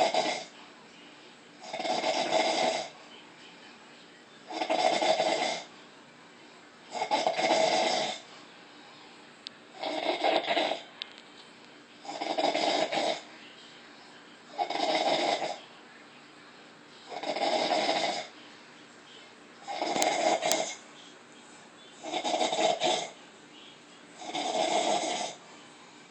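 A woman snoring loudly in a steady rhythm, about one snore every two and a half seconds. Each snore lasts about a second and has a clear, buzzing pitch.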